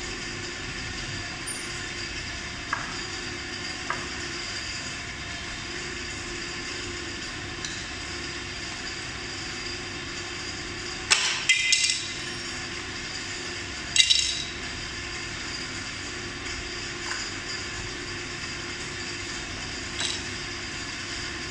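Small metal screws and an Allen key clinking on a hard floor: a few light ticks, then a louder rattle of clinks about halfway through and another a few seconds later, over a steady background hum.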